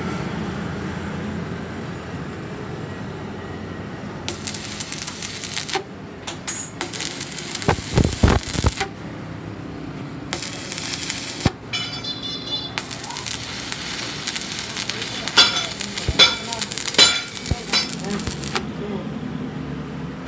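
Stick (shielded metal arc) welding on a steel truck rear axle housing: the arc crackling and hissing in several runs that start and stop abruptly, with a few sharp knocks in between.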